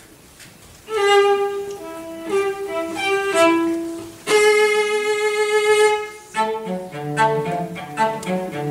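Cello ensemble playing. After a brief hush, high bowed notes begin about a second in, one long note is held in the middle, and lower cello parts join in near the end.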